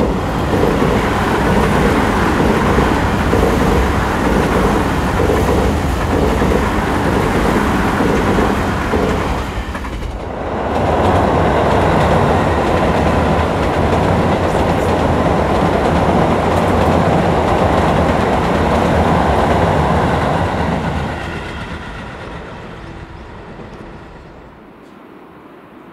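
A Tokyu 5050-series (4000 subseries) electric train running past, its wheels clattering rhythmically over the rail joints. After a brief dip, a Tobu 9000-series electric train passes loudly, then fades away over the last few seconds.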